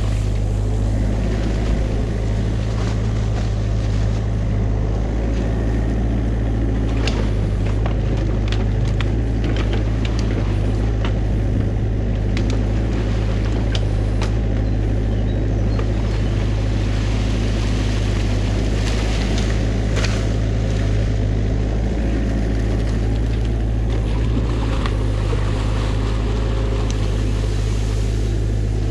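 New Holland mini excavator's diesel engine running steadily under load as the arm and bucket dig, with a few light knocks along the way.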